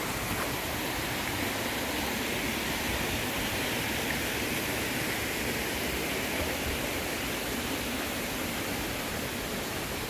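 Steady rushing of a mountain valley stream, an even hiss with no breaks.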